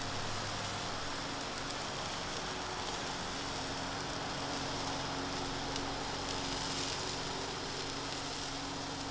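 Chicken souvlaki skewers sizzling on a hot grill: a steady hiss with many small crackles.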